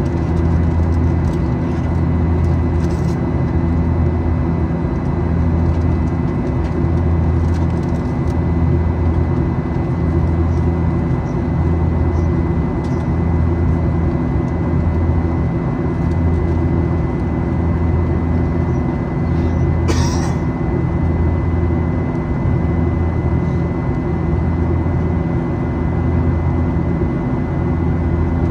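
Boeing 737-800's CFM56-7B jet engines droning steadily, heard inside the passenger cabin, with a slow throb in the low hum roughly every second and a half. A brief rustle about twenty seconds in.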